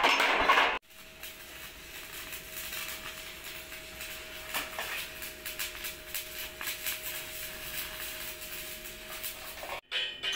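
Hammer blows on a steel excavator hood panel for the first moment. After an abrupt cut comes a quieter stretch of scattered light metallic clicks over a steady hum.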